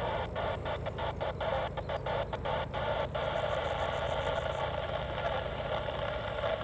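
De Havilland Chipmunk's engine droning steadily in flight, heard as a low hum. Over it runs a louder steady buzz that drops out briefly several times in the first three seconds and cuts off suddenly at the end.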